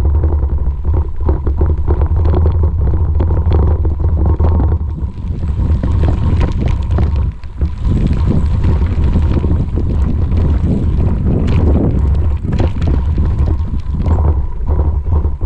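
Wind buffeting an action camera's microphone, a heavy steady rumble, with many scattered knocks and rattles throughout.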